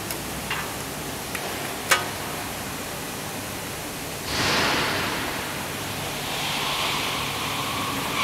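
Steady rushing hiss with a few sharp clicks in the first two seconds, the loudest about two seconds in, as a metal caliper knocks against an alloy wheel. About four seconds in, a louder swell of rushing noise sets in suddenly and slowly fades.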